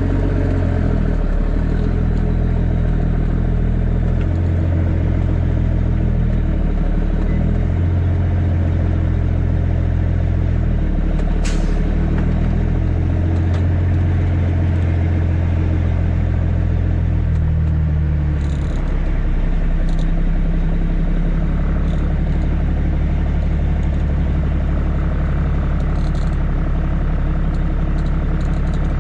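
Caterpillar C13 inline-six diesel in a Kenworth W900B dump truck running on the road, its engine note shifting in pitch several times and then holding steady for the last ten seconds or so. A single sharp click sounds about a third of the way through.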